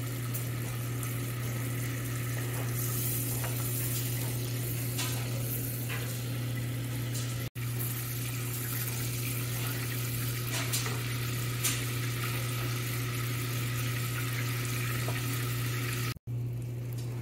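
Butter sizzling and crackling as it foams in a stainless steel saucepan while it is browned, stirred now and then with a wooden spoon, over a steady low hum. The sound breaks off for an instant twice.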